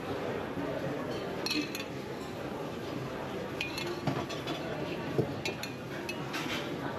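Metal spoon clinking against a small steel saucepan and china plates as sauce is spooned over steaks: a scattering of light clinks over steady kitchen background noise.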